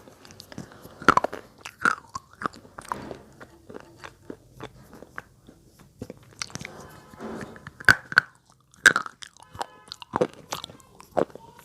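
Slate pencils being bitten and chewed close to the microphone: a quick, irregular run of hard, dry crunches and snaps. The loudest bites come about a second in and again twice later on.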